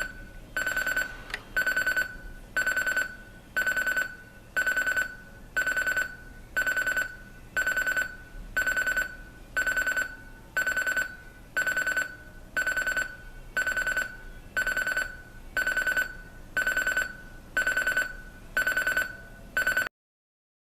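Sonnet CD-30 alarm clock's buzzer alarm sounding: a high electronic beep repeating about once a second, which cuts off abruptly near the end.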